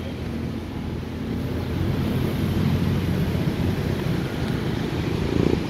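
Street traffic: a steady low rumble of passing motor vehicles, including motorcycle tricycles, cars and a truck.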